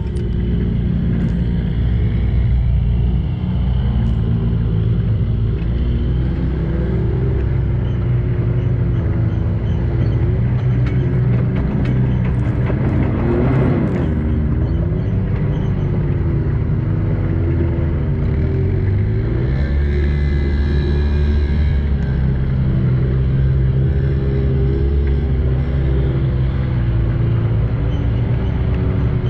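Can-Am Maverick X3 side-by-side's engine running at a fairly steady speed, heard from on board, with a brief rev up and back down about halfway through.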